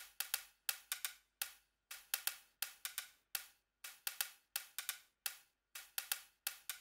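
Electronic percussion loop playing only crisp, high ticks in a syncopated repeating rhythm, some hits doubled, about two to three a second, with no bass or low drums.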